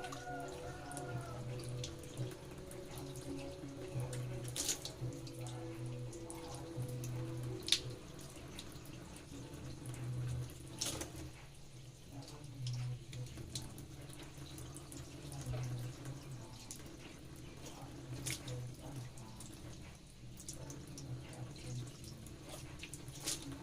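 Water running from a kitchen tap into a sink during dishwashing, with a few sharp clinks of dishes now and then.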